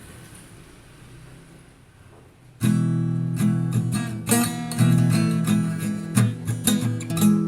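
Music: faint hiss, then acoustic guitar strumming chords comes in suddenly about two and a half seconds in.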